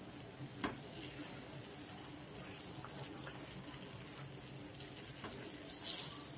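Faint stirring of a thickening palm jaggery and coconut milk halwa batter with a silicone spatula in a nonstick pan, with a couple of light clicks of the spatula against the pan and a short soft hiss near the end.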